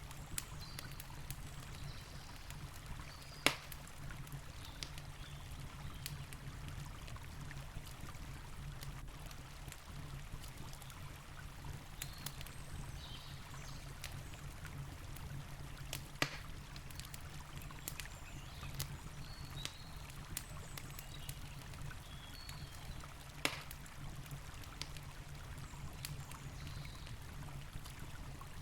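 Wood campfire crackling, with scattered sharp pops and three louder ones spread through, over the steady low rush of a river.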